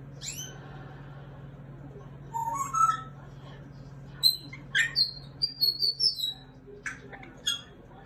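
Congo African grey parrot whistling and chirping: a falling whistle at the start, a short call about two seconds in, then a quick run of short, sharp high chirps from about four seconds in.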